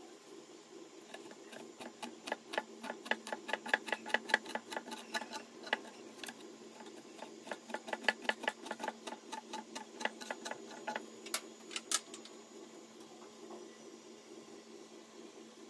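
Knife blade scoring through a whole scaled fish on a wooden cutting board: a quick run of crisp clicks, several a second, pausing briefly about six seconds in and stopping about twelve seconds in. A faint steady hum runs underneath.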